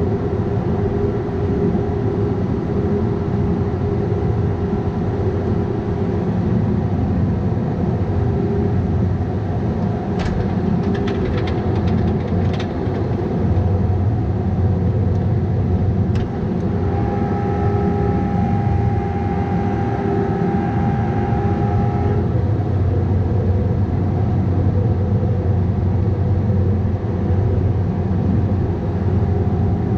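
Bobcat 337G mini excavator running steadily. A few sharp knocks come about a third of the way in, and a higher whine sits over the engine for about five seconds past the middle.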